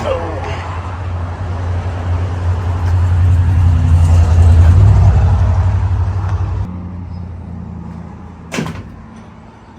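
Motor vehicle on the road: a low drone that swells to a peak about five seconds in and cuts off suddenly a little later. A quieter drone follows, with one short whoosh near the end.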